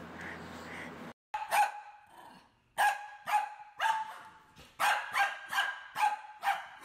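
Small white fluffy dog barking: a string of about ten short, sharp, high-pitched yaps starting about a second and a half in, coming faster, about two a second, towards the end. Before it, a second of low steady background noise cuts off suddenly.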